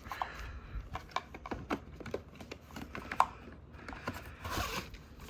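Small, irregular plastic clicks and light rustling from a VHS cassette and its case being handled.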